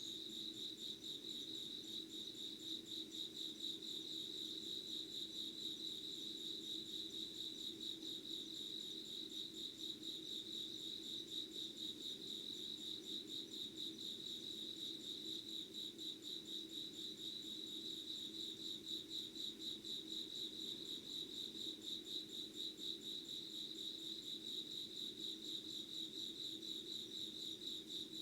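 A chorus of crickets trilling steadily: a high, rapidly pulsing note that keeps on without a break.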